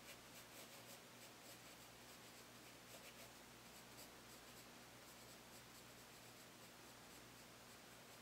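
Faint scratching of a B graphite pencil on sketchbook paper: a run of short, light strokes, the soft first layer of shading laid down before blending.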